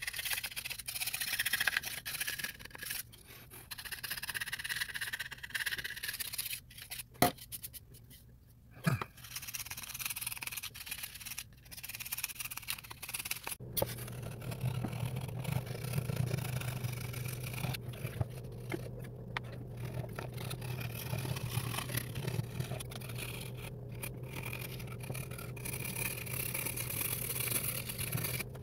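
Knife blade scraping cosmoline and old finish off a wooden Lee Enfield rifle stock in repeated uneven strokes. A low steady hum comes in about halfway.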